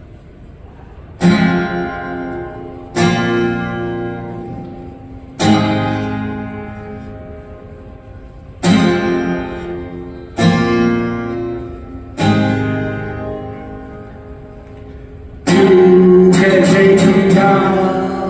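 Guitar intro: six single strummed chords, each left ringing and slowly fading, then quicker strumming that keeps ringing near the end.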